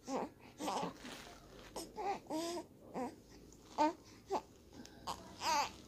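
Baby fussing: a string of short, whiny cries and babbling sounds with quiet gaps between, as a tired infant protests while being dressed.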